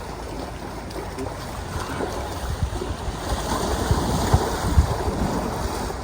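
Wind buffeting the microphone, with irregular low rumbling gusts that grow stronger partway through.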